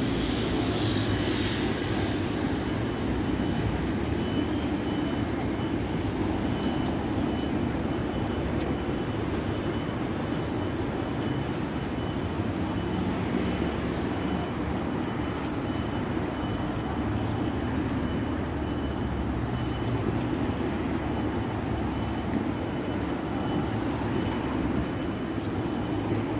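Steady city street traffic noise, a constant low rumble of road vehicles with no single event standing out.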